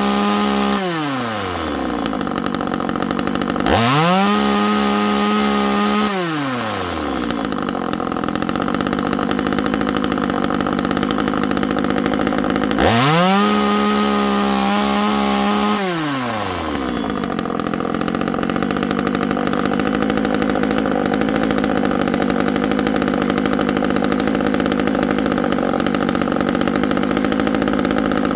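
Timberpro 25cc top-handle two-stroke chainsaw revving: it drops from full throttle back to idle, is revved up and held twice more for two to three seconds each time, then idles steadily. The engine is running again after three years in storage.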